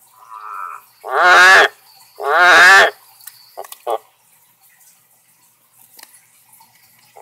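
Male Amazon milk frog giving his courtship call: a soft lead-in note, then two loud croaks about a second apart, followed by two short clucks. Another croak begins at the very end.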